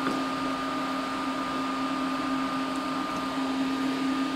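Steady whooshing fan noise from a running kitchen appliance, with a constant low hum and a higher whine that do not change.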